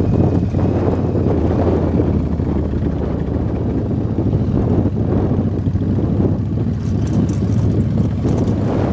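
Motorcycle engine running steadily while riding a sandy dirt track, mixed with rushing wind noise on the microphone.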